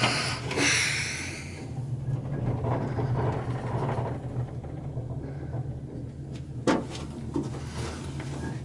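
Ride inside a Leitner six-seat gondola cabin running down the cable: a steady low hum throughout, a hiss in the first second or so, and one sharp knock about two-thirds of the way in.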